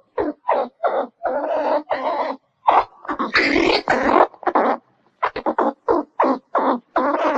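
Squirrel calling: an irregular run of harsh, raspy chirps, some short and clipped, others drawn out to about a second, with brief pauses between them.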